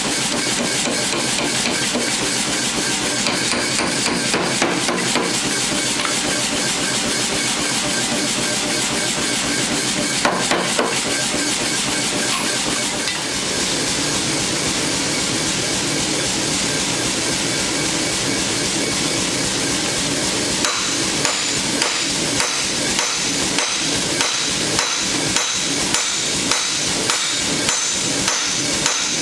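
Hammer blows forging mild steel: a fast run of close-set strikes, then, about two-thirds through, slower evenly spaced blows about two a second that ring. A steady noise runs beneath.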